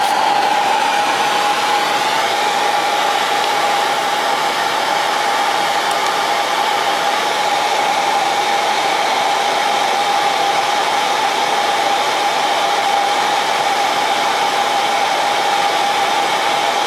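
Heat gun running steadily: a blowing rush with a steady whine from its fan. It is heating a thermocouple probe past 400 °C.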